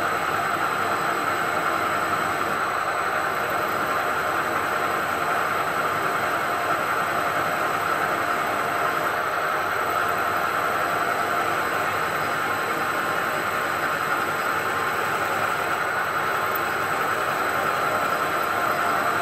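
CNC milling machine spindle running as a drill works into an induction-hardened lathe bedway: a steady whir and hiss that holds the same level without a break.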